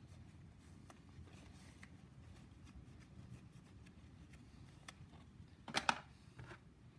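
Faint handling noises of small shock absorber parts being picked up and set down, with scattered light ticks and a brief louder rustle about six seconds in, over a low steady room hum.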